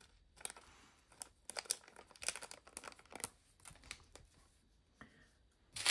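Small plastic bags of diamond-painting drills crinkling as they are handled and opened, in short irregular crackles.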